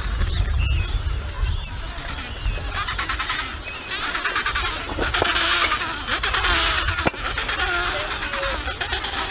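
Adélie penguin colony calling, many overlapping squawks and chattering cries, with wind rumbling on the microphone, strongest in the first two seconds.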